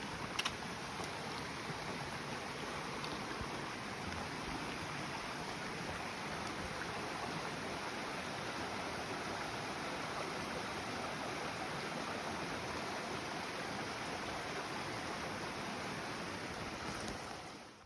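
Steady rush of a mountain stream, with a faint click near the start; the sound cuts off abruptly at the very end.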